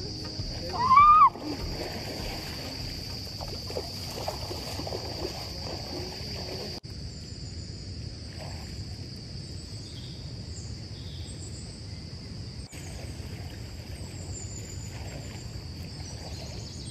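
Insects chirring in a steady, high-pitched drone over river water splashing and sloshing as people wade through the shallows. About a second in comes a short, loud call that rises and falls in pitch, and a few high chirps sound later on.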